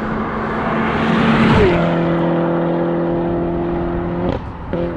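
Tuned Peugeot 308 GTi accelerating hard past the camera. Its engine note rises until the car passes, about a second and a half in, then drops in pitch as it pulls away. The sound breaks off briefly near the end for a gear change.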